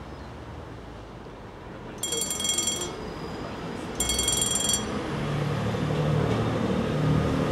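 Steam locomotive whistle giving two short toots about a second apart; it is most likely the two-tone whistle of the Talyllyn Railway's 0-4-2T tank engine No. 7 'Tom Rolt'. After the second toot a low rumble grows louder.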